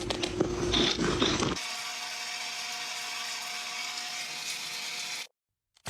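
A small electric motor whirring steadily for a few seconds, then cutting off abruptly.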